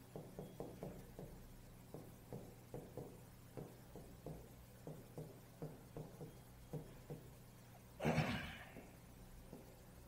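Chalk tapping and scraping on a blackboard as a line of words is written, in a quick, irregular run of short strokes. About eight seconds in there is one brief, louder rushing noise.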